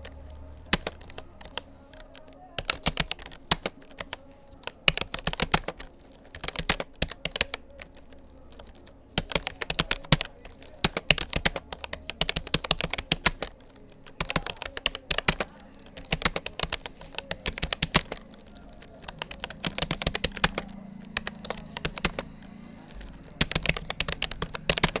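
Rapid typing on a Rapoo computer keyboard: irregular bursts of key clicks broken by brief pauses between words.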